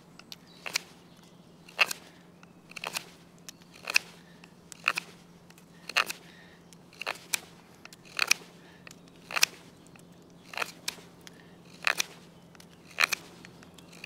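Victorinox Huntsman pocket-knife blade shaving fresh hazel wood while carving a flat: a crisp cut about once a second, about a dozen strokes in a steady rhythm.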